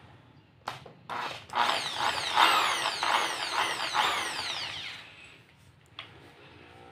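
Bosch GSB 550 impact drill running for a few seconds, its whine falling in pitch again and again, loudest in the middle and dying away; a click at the start and another near the end.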